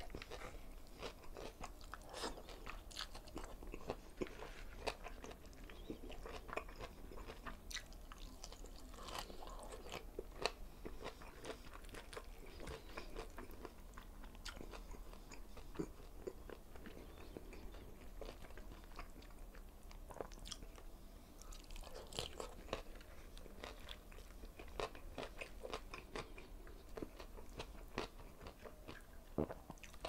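A person chewing fried tilapia and rice close to a clip-on microphone, with many short, irregular crunches and wet mouth sounds.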